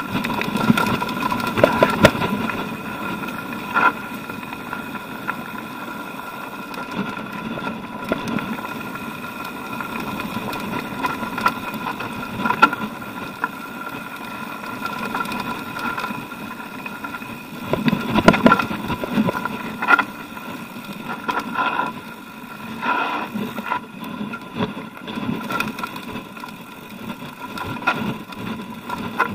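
Mountain bike rolling over rocky, loose-stone singletrack: tyres crunching on gravel and the bike knocking and rattling over bumps, with rougher stretches about 2 s in and around 18 and 23 s. A steady high whine runs underneath.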